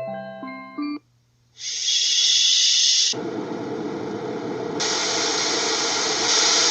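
Tiny portable sound machine's speaker ending a simple electronic lullaby melody, then, after a short gap, playing steady hissing white-noise-style sound. The noise changes partway through as it switches tracks, going from a thin high hiss to a fuller rushing noise, with a brighter hiss layered in near the end.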